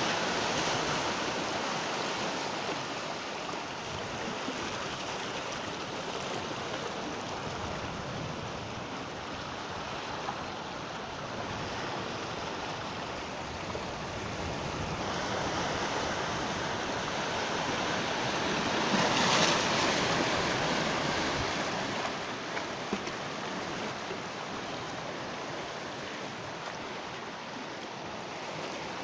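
Sea waves breaking and washing on the shore in a steady surf, swelling into a louder breaker about two-thirds of the way through.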